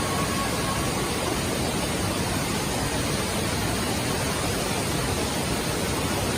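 Waterfall rushing steadily, an even wash of falling-water noise with no break.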